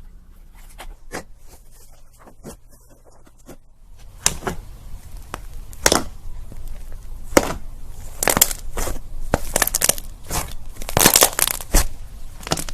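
Slime being squished and stretched by hand: a run of sticky pops and crackles, sparse and soft at first, then denser and louder from about four seconds in.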